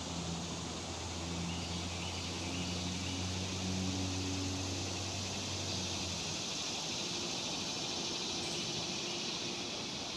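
Steady chorus of evening insects in the woods, with a low steady hum underneath that stops about six seconds in.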